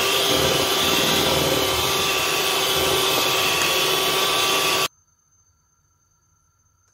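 Electric hand mixer running steadily at speed, its beaters whisking cake batter, then cutting off suddenly about five seconds in.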